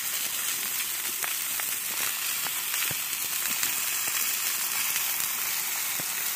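Steaks searing on a very hot flat-top griddle at about 430 degrees: a steady sizzle with scattered small pops and crackles.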